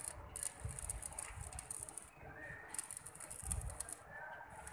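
Electric arc welding on a steel frame joint: a high crackling sizzle that comes in three short runs, breaking off briefly between them.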